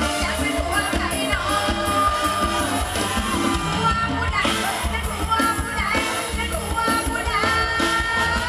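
Live mor lam band with a female lead singer: her amplified voice carries a gliding melody over a steady drum and bass beat.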